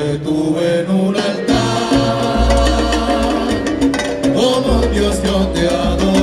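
Live salsa band playing, with congas and bass under lead and chorus singing.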